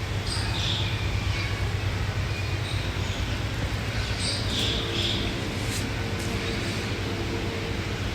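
Chow chow snoring, a low steady rumble, with a few faint high chirps.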